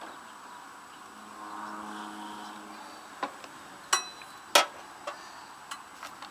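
Hand tools clinking against the steel frame and engine bolts of an MTD riding mower during engine removal: sharp metallic clicks roughly every half second from about three seconds in, one ringing briefly. A faint low hum is heard before the clicks start.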